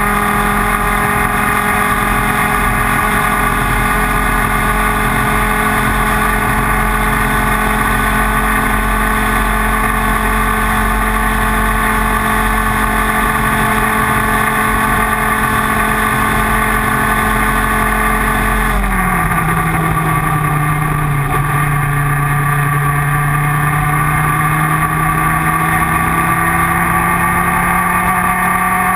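Racing kart's IAME Leopard 125cc two-stroke engine held at high, steady revs, then about two-thirds of the way in the pitch drops sharply as the throttle is lifted and climbs slowly back up as the kart accelerates again.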